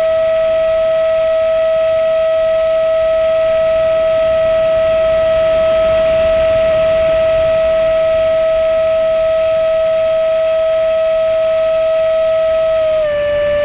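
Electric ducted-fan motor of a Banana Hobby F-22 RC jet whining at a steady high pitch over a hiss, stepping slightly lower in pitch near the end.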